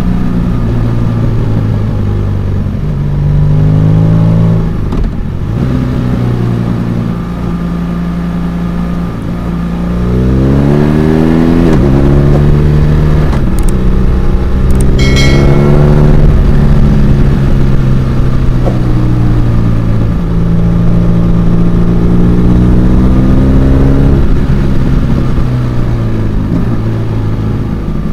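BMW R1200RS LC's liquid-cooled boxer twin engine running under way, its exhaust note rising as it accelerates about three seconds in and again about ten seconds in, with a brief drop near five seconds when the throttle eases, then holding a steady pull.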